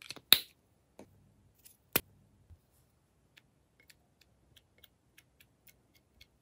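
Small plastic clicks and snaps from a pink heart-shaped squeeze bottle being handled and opened, the loudest sharp snaps in the first two seconds. These are followed by a run of faint light ticks as it is squeezed over the glue.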